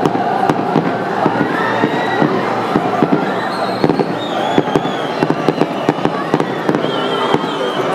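Fireworks crackling and popping, many sharp irregular pops a second, over the steady noise of a crowd.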